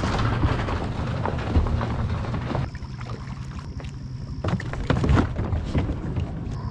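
Kayak on the water: scattered knocks and clicks from gear and the hull over a steady low hum, with a thin high tone joining a little past the middle.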